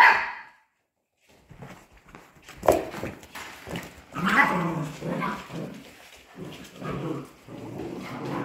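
Polish Hunting Dog puppies at play: a sharp yip right at the start, then scattered yaps and whines, with a sharp knock a little under three seconds in.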